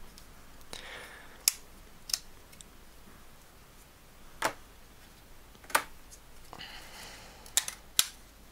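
Plastic snap-on hard case being worked off one iPhone 5 and pressed onto another: about six sharp plastic clicks and snaps, spread out, with short stretches of plastic rubbing and scraping between them.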